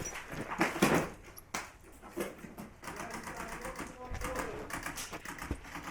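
Airsoft guns firing: rapid runs of sharp clicking shots, with a few louder single cracks near the start.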